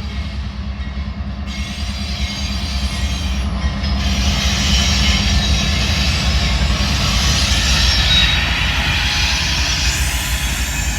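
Norfolk Southern train rolling past after its horn: a steady low locomotive rumble under the hiss and clatter of wheels on rail, which grows louder a few seconds in. A faint high wheel squeal comes about eight seconds in.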